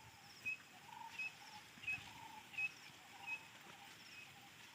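Birds calling: a short high note repeats about every 0.7 s, five times, over softer, lower notes that also repeat.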